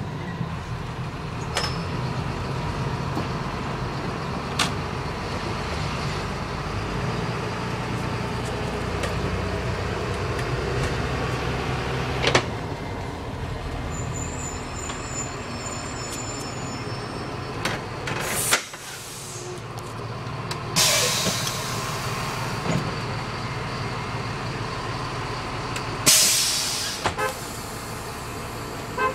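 Thomas C2 school bus engine running steadily, heard from the driver's seat, its low rumble dropping away sharply a little past the middle. Two loud hisses of air from the air brake system follow in the last third.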